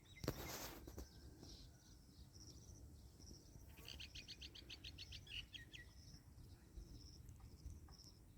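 Faint outdoor nature ambience. A bird sings a quick trill of about a dozen notes in the middle, and short high chirps repeat throughout over a low rumble. A brief rustling burst comes about half a second in.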